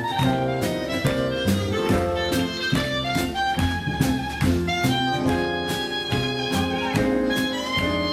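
Instrumental music with a steady beat, about two strokes a second, under a melody line, without singing.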